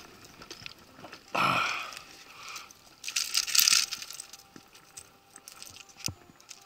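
A hooked pike being hoisted out of the water on the line and swung into an inflatable boat. There are two short noisy bursts of the fish thrashing, about one and a half and three seconds in, with small rattling handling noises and a sharp click near the end.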